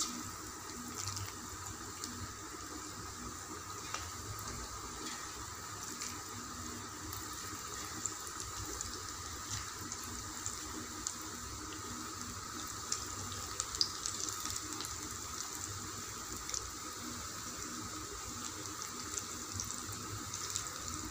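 Chayote (chow chow) pakoda fritters deep-frying in hot oil in a kadai: a steady sizzle dotted with scattered sharp crackles and pops.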